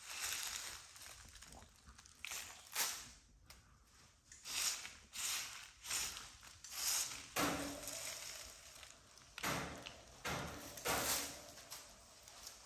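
Three-week-old American Bully puppies moving about and jostling on their bedding: a string of irregular rustles and scratches.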